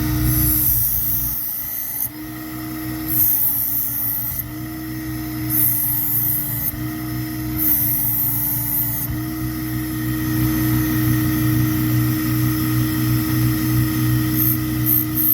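Work Sharp belt-driven knife sharpener running steadily, with a knife blade drawn across the moving abrasive belt four times in the first nine seconds, each pass a hiss of about a second with the motor's pitch dipping slightly under the load. A few quick, short touches of the blade on the belt come near the end.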